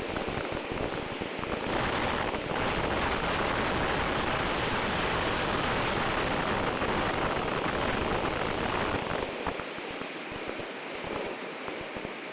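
Wind rushing over the microphone of an RC plane's onboard camera in flight, growing louder about two seconds in and easing off again about nine seconds in. A faint steady tone runs under the rush.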